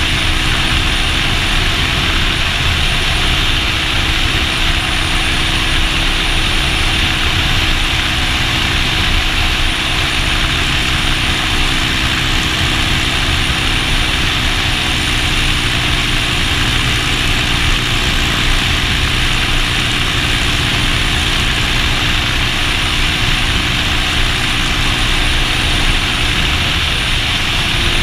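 Motorcycle engine running at a steady cruising speed under heavy wind rush over the microphone. The engine note holds level, shifting slightly about two seconds in and again near the end.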